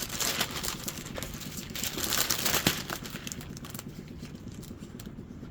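Sheets of stencils and stickers being handled and shuffled, crinkling and rustling with small clicks. It is busiest for the first three seconds, then dies down.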